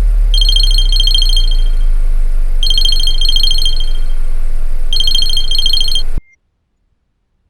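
Electronic alarm ringtone going off in repeated bursts of rapid high-pitched warbling, about every two seconds, over a loud low drone. Both cut off suddenly about six seconds in.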